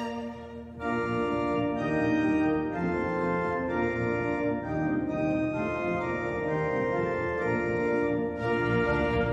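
Background music of held, organ-like chords that change about once a second.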